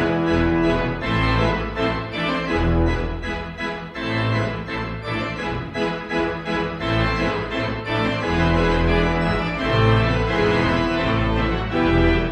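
Instrumental music: held organ-like keyboard chords over a moving bass line.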